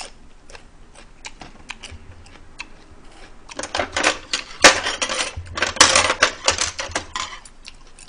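Metal chopsticks clicking and scraping against a steel serving pan as food is picked out: scattered clinks at first, then a dense flurry of sharp clatter over the middle few seconds.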